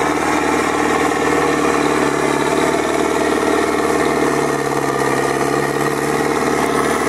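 Belarus tractor's diesel engine running steadily, without revving, as the tractor creeps forward through soft, muddy ground pulling a loaded cassava trailer.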